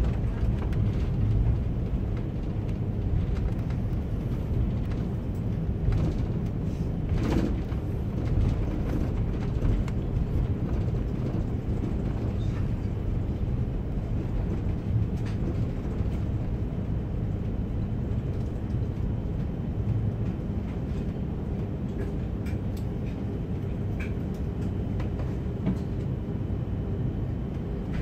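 Cabin noise of an Airbus A330-300 taxiing: a steady low rumble of the Rolls-Royce Trent 700 engines at idle and the wheels rolling on the concrete, heard from inside the cabin. A soft knock comes about seven seconds in, and a few faint clicks come near the end.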